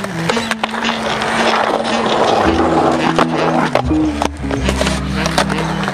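A song with sustained notes and a bass line plays over skateboard sounds: urethane wheels rolling on concrete and sharp clacks of the board.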